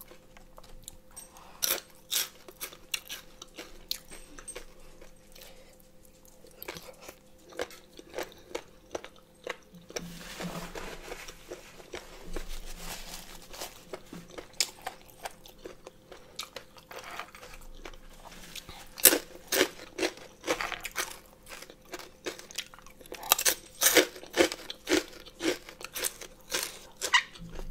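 Crunchy chewing of pig ear and pork rinds, sharp crackling crunches coming in clusters, thickest near the end.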